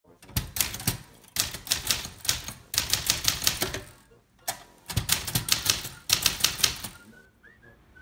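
Keys being typed on a 1948 Remington Noiseless Model 7 typewriter, in four quick runs of sharp clicks with short pauses between them. Its noiseless action pushes each type bar against the platen rather than flinging it at it.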